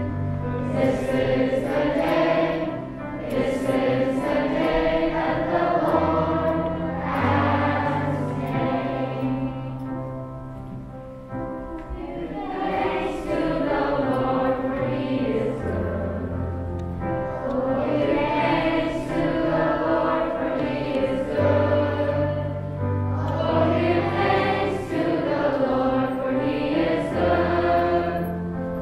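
Choir of children and teenagers singing a church song together, accompanied by an electric keyboard whose held low notes change every few seconds.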